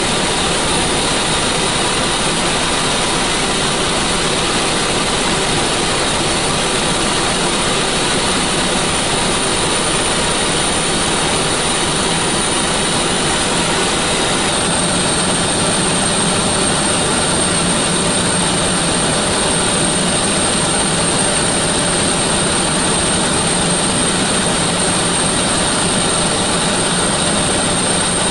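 NH90 (Hkp 14) helicopter in flight, heard inside the cockpit: a steady, loud rush of turbine and rotor noise with a constant high whine over it.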